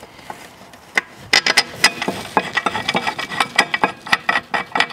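Hand ratchet clicking rapidly as a brake caliper carrier-to-hub bolt is run in, starting about a second in.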